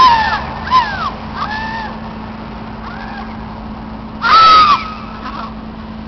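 A series of loud, crow-like squawking calls, about five of them, with the loudest and longest about four seconds in, over a steady low hum.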